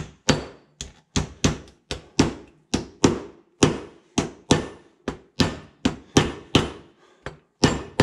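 Ball-peen hammer tapping a grease seal down into the bore of a 1974 Jeep CJ-5 front wheel hub, worked around the seal's rim: a steady run of sharp metal taps, about two or three a second.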